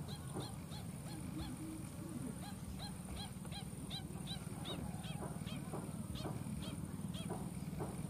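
Whistling ducks calling: a quick, steady series of short whistled notes, about three to four a second, over a steady low hum.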